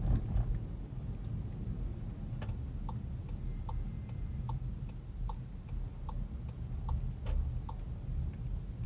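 A car's turn-signal indicator ticking evenly, about one tick every 0.8 seconds, starting about three seconds in and stopping near the end, over the steady low rumble of engine and road noise heard inside the cabin.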